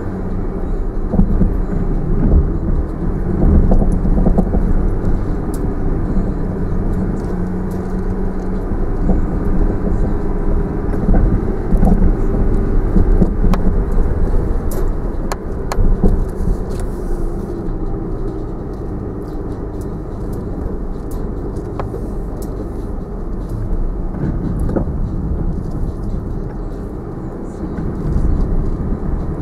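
Land Rover Discovery 4 crawling in low range over a rutted forest track, heard from inside the cabin: a steady engine and drivetrain drone with scattered knocks and clicks.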